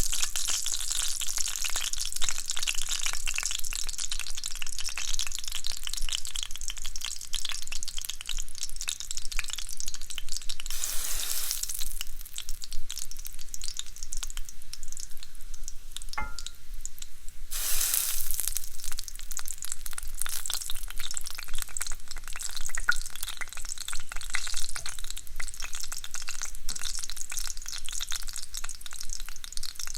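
Bacon frying in a hot pan: a dense, high-pitched sizzle full of small crackling pops of grease. It dies down for a few seconds near the middle, then comes back loud.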